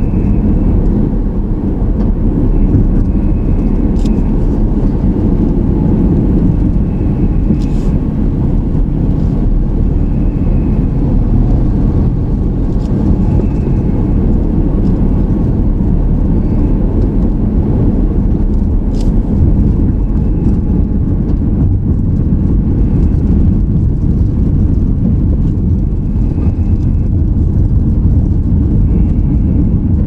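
Steady low road and engine noise of a car being driven, heard from inside the cabin, with a few faint clicks.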